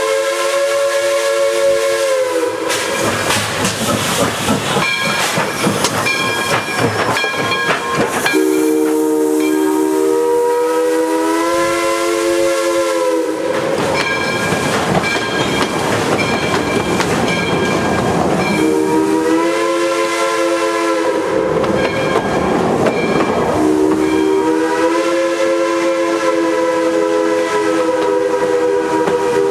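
JS class 2-8-2 steam locomotive No. 8419 blowing its multi-tone chime whistle in long blasts: one ending about two seconds in, a long one from about eight to thirteen seconds, a short one around twenty seconds, and another long one near the end. The long, long, short, long pattern is the grade-crossing signal. Between the blasts the engine passes close by with steam hissing and exhausting, then the coaches roll past with wheels clicking over the rail joints.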